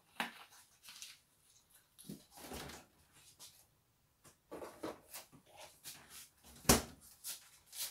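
Scattered light knocks, clicks and rustles of things being handled, with one sharper, louder knock about two-thirds of the way through.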